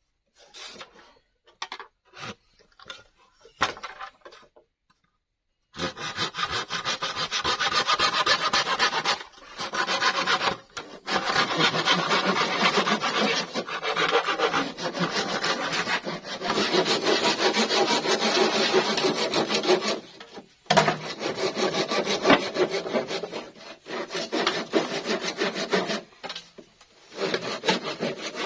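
A few light knocks, then from about six seconds in a hand saw cutting through bamboo in fast, continuous strokes, stopping briefly a few times.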